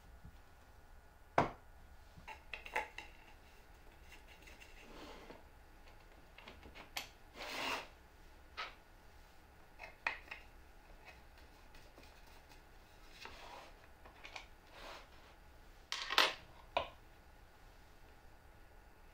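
Workshop handling noise: scattered knocks and clicks, plus a longer sliding rub about eight seconds in, as an MDF jig is fitted against an aluminium router-table fence and its knob is tightened, and a plastic featherboard is picked up and handled. The loudest knocks come about sixteen seconds in.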